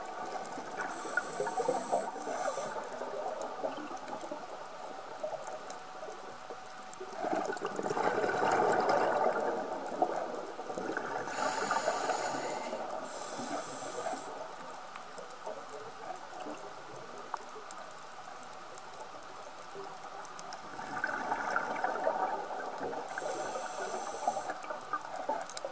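Scuba regulator breathing underwater: a short high hiss with each inhale, and a rush of bubbling exhaled air twice, each lasting a few seconds, over a steady underwater crackle.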